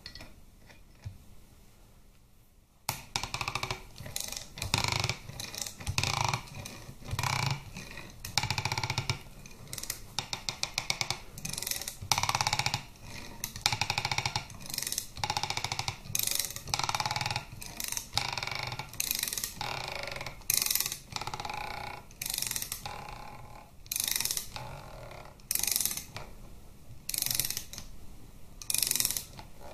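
Ratchet wrench clicking in repeated strokes, roughly one a second, as it winds in the forcing screw of a bearing puller to draw the bearing off a Harley-Davidson Twin Cam camshaft. The first three seconds are nearly quiet before the strokes begin.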